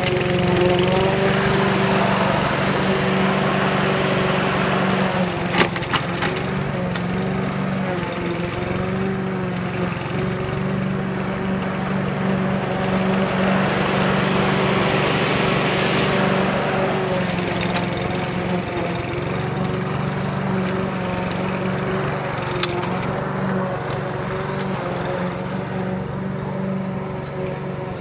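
Walk-behind petrol rotary lawn mower running steadily while cutting grass, with two sharp clicks, about five seconds in and again later, and the sound easing a little near the end as the mower moves away.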